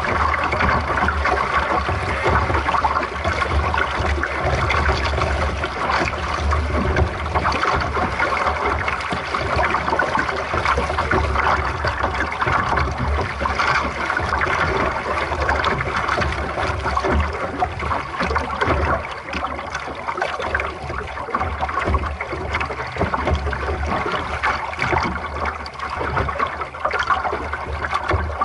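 Water rushing and gurgling along the hull of a small sailing dinghy under way, an even wash with a low rumble underneath.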